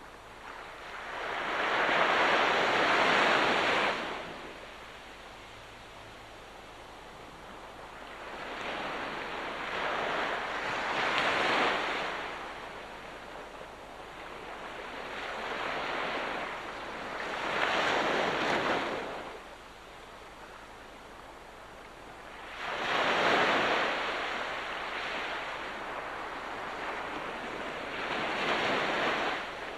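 Sea waves breaking on the shore, about five in turn, each surge of surf swelling up and washing away over a few seconds.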